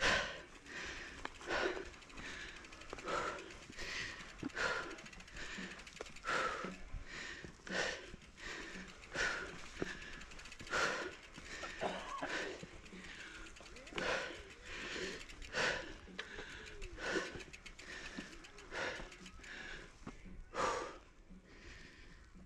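A mountain biker breathing hard and fast close to the microphone, a gasp or puff of air about once a second, out of breath from riding up a dirt climb.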